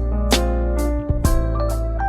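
Background music: layered pitched notes over a steady bass, with drum hits about twice a second.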